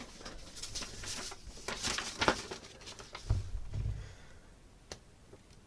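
Rustling and crinkling of a mailing packet being handled and searched through by hand, with scattered light clicks and two dull thumps a little over three seconds in.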